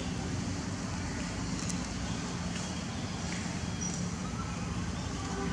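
Steady outdoor background rumble, with a few faint, short high chirps.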